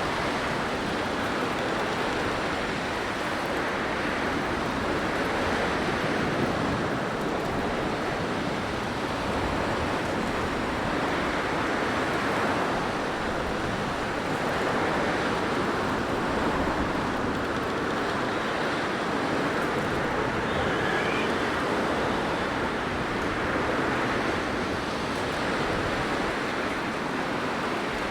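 Blizzard wind blowing in a steady rush that swells and eases in slow gusts every few seconds.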